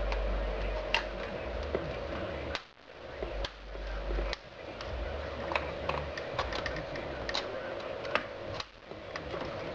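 Irregular sharp plastic clicks and taps as car dashboard trim and the climate control unit are handled and pushed back into the centre console, over a steady hum.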